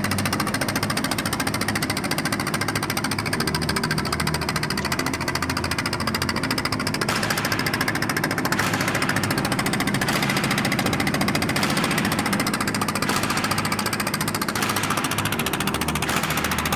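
A small fishing boat's engine running steadily, with a fast, even knocking beat.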